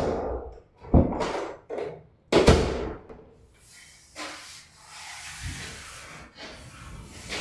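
Wooden door being shut to test the newly fitted door knob latch against its striker plate: three sharp knocks in the first three seconds, followed by a few seconds of softer rubbing and scraping.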